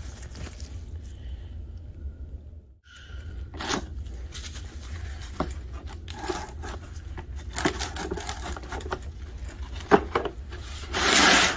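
Gloved hands handling a plastic tool case and a blue paper shop towel: scattered light clicks and knocks, then a loud, brief scraping rustle of the paper towel near the end, over a steady low hum.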